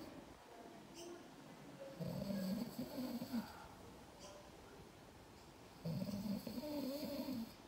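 A man snoring: two long snores about four seconds apart, each wavering in pitch.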